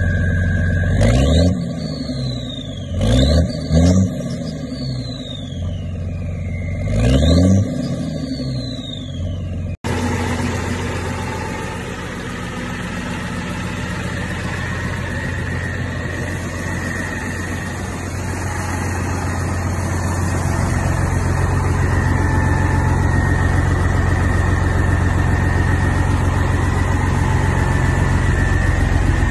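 A large truck engine revved four times in quick blips, each rising and falling fast. After a cut, a military-style truck's engine idles steadily, with a thin steady high tone over the idle.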